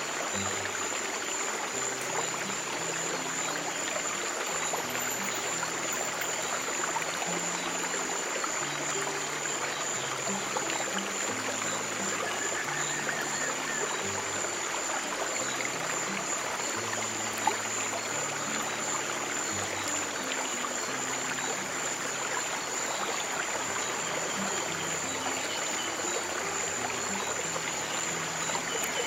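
Flowing stream water running steadily, with soft, slow low music notes underneath and a faint steady high-pitched tone.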